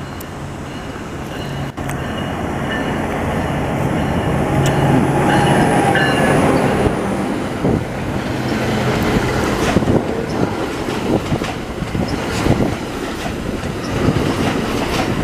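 Commuter train passing close by. A Bombardier ALP-45DP dual-mode locomotive runs on its diesel engine, getting louder as it approaches and goes by over the first five or six seconds. Then the bilevel coaches roll past with a clickety-clack of wheels over the rail joints.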